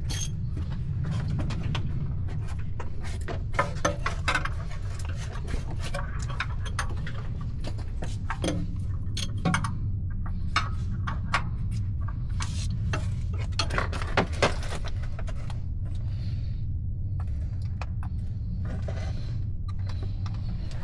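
Metal hand tools clinking and tapping on the engine as a drive tool is worked onto the truck's belt tensioner, with irregular short clinks throughout, over a steady low hum.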